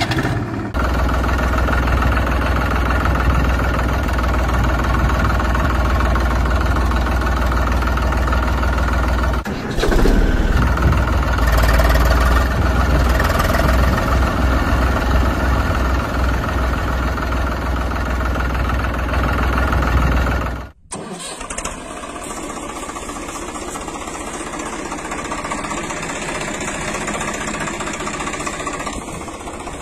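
Tractor engine running steadily with a deep, low throb. It breaks off for a moment about a third of the way through, then resumes. About two-thirds through it cuts off abruptly and gives way to a quieter, thinner engine sound.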